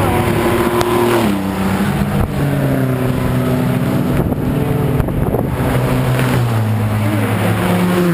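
Race car engines running at speed on the track, the engine note dropping in pitch in steps several times. A car passes close by near the end.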